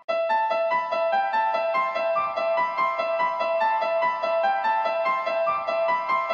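Music: a quick electric-piano melody of evenly paced notes, about four a second, over a repeating high note, starting abruptly.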